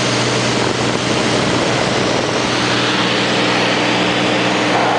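Cabin noise of a Cessna 210 in flight: the piston engine and propeller drone steadily, with a constant rush of air over it.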